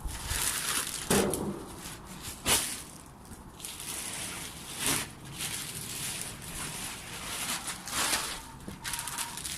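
Crumbly well-rotted manure being handled and moved, a rough crunching and rustling with a few sharper knocks, the loudest about a second and two and a half seconds in.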